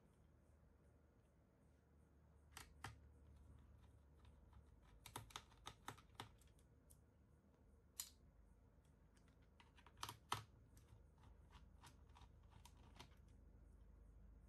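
Faint, scattered clicks and taps of hands working inside an opened laptop while its battery cable is unplugged and the battery taken out, coming in small groups with near silence between.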